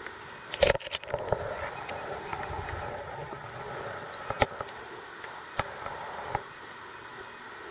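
Sound picked up by a camera held underwater: a steady muffled water noise with several sharp knocks and clicks, the loudest cluster about half a second in and a few single knocks later.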